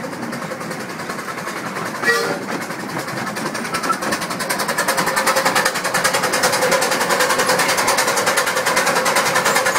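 A miniature 7¼-inch gauge steam train runs along with a rapid, even rhythmic clatter. It grows louder from about halfway, as the train passes into a brick tunnel.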